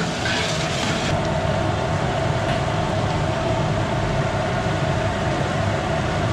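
A large aluminium pot of masala frying over high heat: a steady roar with a constant hum running under it. A brighter sizzle comes in the first second while the ladle stirs the pot.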